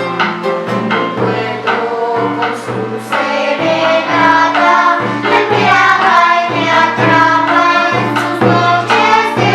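Choir singing with instrumental accompaniment over a steady bass pulse about twice a second, swelling slightly partway through.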